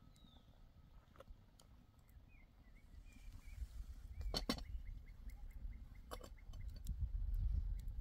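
A blackened metal kettle being handled over a campfire, with two sharp metal clinks, one midway and one about six seconds in, over a low rumble that grows louder toward the end. Faint bird chirps sound in the background.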